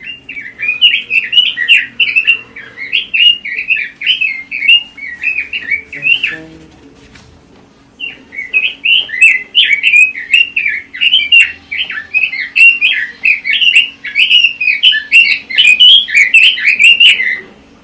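Pekin robin (red-billed leiothrix) singing a fast, continuous warbling song. The song breaks off for about a second and a half some six seconds in, then resumes.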